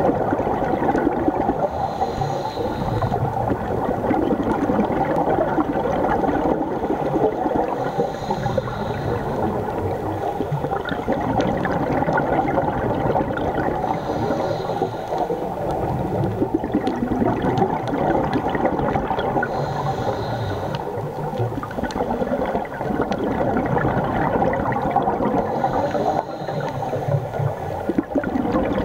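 Scuba diver breathing through a regulator, heard underwater: a bubbling exhale about every six seconds, five times, over a steady underwater hiss.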